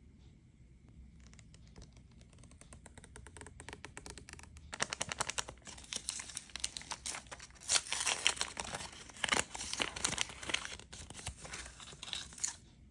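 Crinkly paper wrapping from a blind-box toy capsule being twisted and crumpled by hand. Faint crackles at first, then a dense run of loud crackling from about five seconds in, stopping just before the end.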